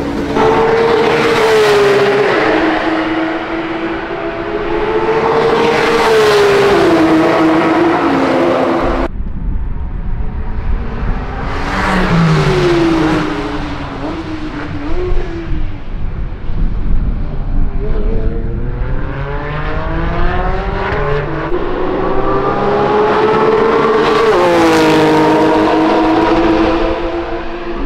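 Porsche 992 GT3 RS 4.0-litre naturally aspirated flat-six engines, first revving up and down twice in the pit garage, then driving on track. One car passes with its pitch falling. Another accelerates with a long rising howl that peaks and drops as it goes by.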